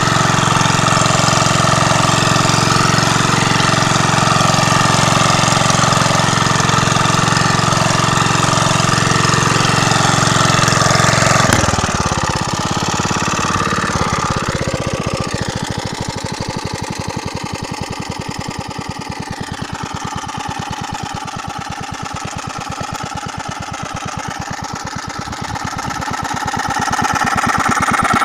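Bernard 249B engine of a Motostandard Gutbrod walk-behind tractor running steadily under load while it pulls a ridging plough through the soil. About twelve seconds in, the steady pitch breaks off and the engine drops to a slower, quieter run with separate firing beats, then picks up again near the end.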